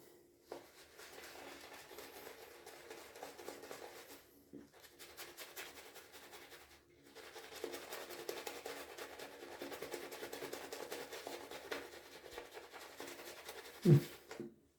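Shaving brush with a synthetic knot being worked fast through wet shaving soap to build a lather, a steady rapid swishing and squelching. It pauses briefly twice and gets louder through the middle of the stretch.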